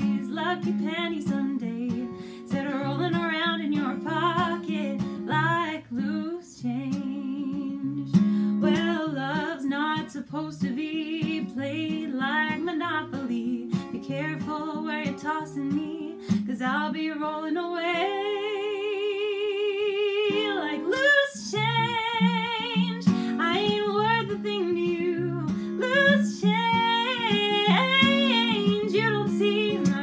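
A woman singing with an acoustic guitar, including one long held note with vibrato about two-thirds of the way through.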